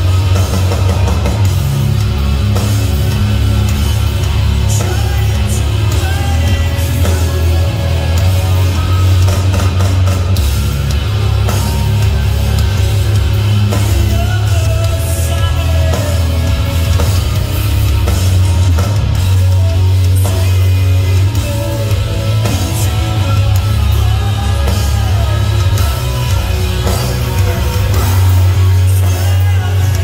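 A live rock band playing loud, heavy music: distorted electric guitars, bass and drum kit, with vocals over them.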